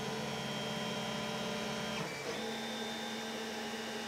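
Stock Creality CR-10 3D printer printing: its undamped stepper motors whine in steady tones that jump to new pitches about two seconds in as the print head changes moves, over the constant whirr of its cooling fans, including the loud hotend fan.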